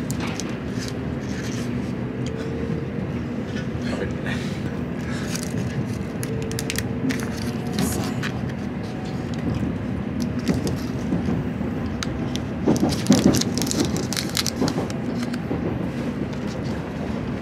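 Steady rumble of a Shinkansen bullet train's cabin at speed, with scattered crackles and clicks from a plastic bento tray and a pleated paper cup being handled; the crinkling is loudest about thirteen seconds in.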